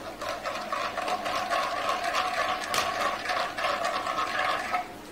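Whisk beating fast in a frying pan, a steady rapid scraping rattle, as tomato sauce is worked into the sauce to turn it into sauce choron. It stops shortly before the end.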